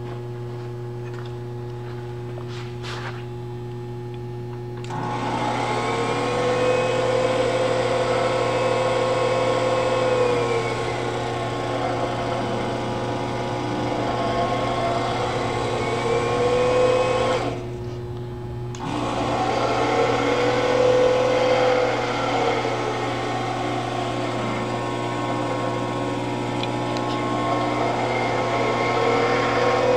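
Ransome 1000 lb welding positioner's electric drive running under pendant control, starting about five seconds in with a whine that rises in pitch as it speeds up, holds, and falls as it slows, several times over, with a brief stop about two-thirds of the way through. A steady electrical hum underlies it, with a few clicks before the drive starts.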